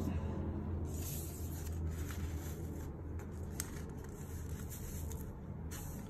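Faint rustling and light handling of a paper pattern strip being swapped and laid down, with a few soft ticks, over a steady low hum.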